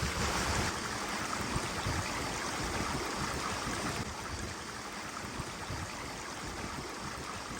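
Mountain river flowing: a steady rush of water with uneven low rumbling, a little quieter from about four seconds in.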